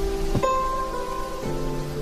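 Background music: a gentle instrumental score of held notes, changing chord about half a second in and again near the end.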